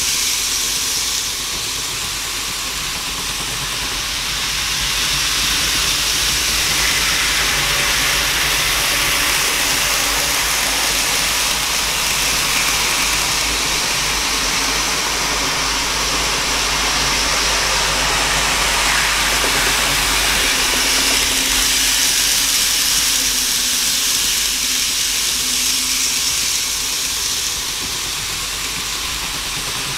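N-gauge model trains running on the track: a steady rushing whir of the small motors and wheels on the rails. It grows louder a few seconds in and eases off near the end.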